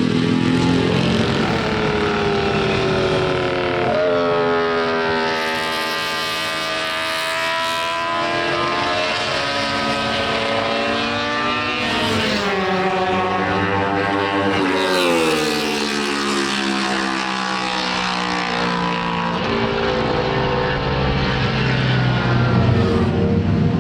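Honda six-cylinder GP racing motorcycle engine running at high revs, its note climbing and falling several times, rising to a peak about six seconds in and again around fifteen seconds in.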